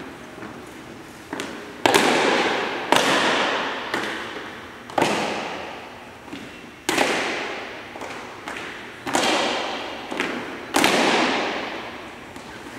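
Cadets' drill boots stamping on a hard floor in unison, about six loud stamps a second or two apart, some with a lighter stamp just before, each followed by a long echo off the hangar walls.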